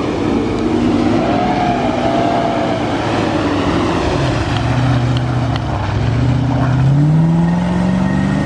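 Off-road 4WD's engine revving up and down several times, climbing in pitch over the last few seconds, as it labours to get out of the mud.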